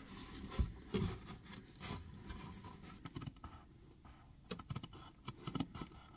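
Scissors cutting through cushioned vinyl shelf liner: a run of faint, irregular snips and scratchy rustles of the liner being handled.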